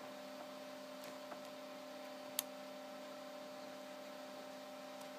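Faint steady hum with a few light clicks and one sharper click about two and a half seconds in, as multimeter test probes are moved onto the board's triacs.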